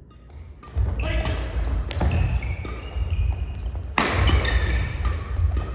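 Court shoes squeaking sharply and repeatedly on a wooden gym floor as badminton players rally, with footsteps thumping on the floor and a few sharp racket strikes on the shuttlecock. It starts suddenly a little under a second in.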